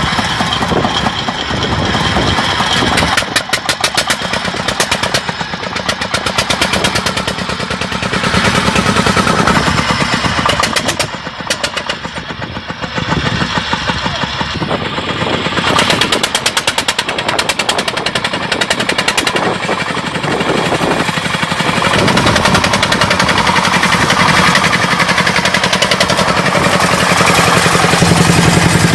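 Rice combine harvester running, its engine and machinery making a fast, steady knocking clatter that eases briefly about halfway through.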